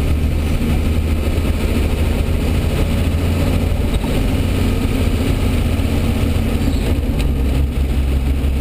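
International Harvester Scout II diesel engine running steadily, heard from inside the cab.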